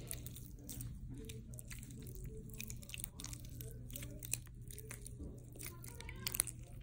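Runny, jelly-like slime squeezed and kneaded in a hand, making many small irregular wet clicks and squelches.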